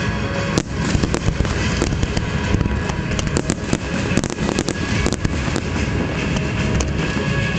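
Aerial fireworks bursting in rapid succession: a dense run of sharp cracks and bangs, many a second, over a steady low rumble.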